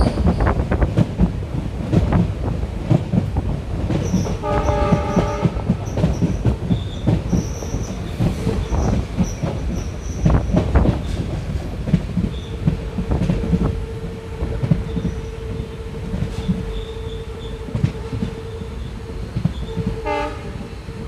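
Passenger train running, heard from on board: a steady rumble with the clatter of wheels over rail joints. A short locomotive horn blast comes about four seconds in, and in the second half a steady high-pitched wheel squeal sets in.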